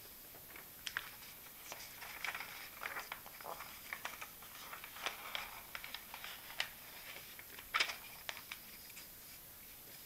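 Paper pages of a printed test being handled and turned over: a run of short rustles and crinkles, with one sharper paper snap about eight seconds in.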